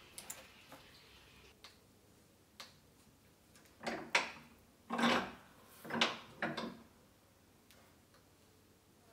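A bench vise being tightened by its handle to clamp a cuttlefish bone mold between wooden jaws: a few light clicks, then four short scraping, creaking turns in the middle.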